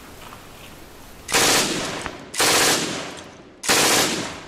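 Three bursts of machine-gun fire about a second apart, each starting suddenly and fading away.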